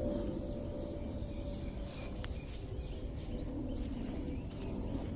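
Outdoor ambience of scattered faint bird chirps over a steady low rumble and a faint steady hum, with a single sharp click about two seconds in.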